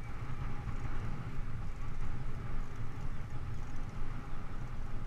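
Steady wind rumble on a bicycle-mounted camera's microphone while riding, mixed with tyre and bike noise on the paved path.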